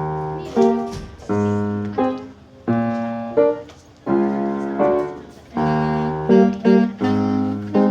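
Piano accompaniment playing a series of struck chords, each sounding sharply and then ringing and fading.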